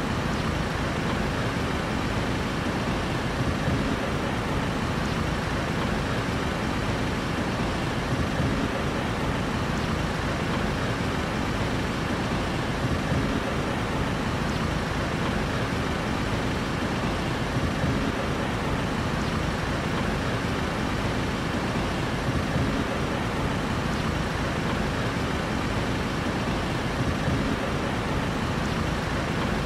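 Steady city street traffic noise: a constant low rumble of vehicle engines and road noise, without any single vehicle standing out.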